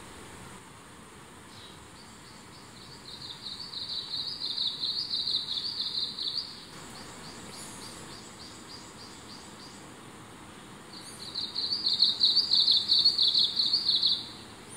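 Eastern crowned warbler singing twice, each song a rapid string of high repeated notes lasting about three to four seconds, with fainter high bird notes in the pause between.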